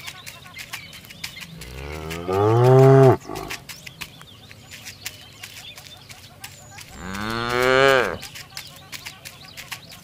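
A cow mooing twice, two long loud calls a few seconds apart, each bending in pitch and ending abruptly, with faint scattered clicks in between.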